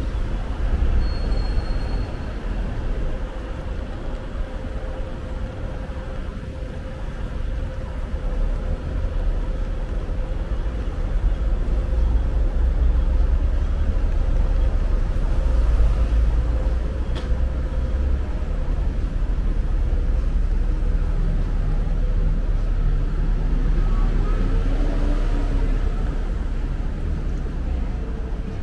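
Urban street ambience: a steady low rumble of road traffic, with a faint steady hum through the first two-thirds.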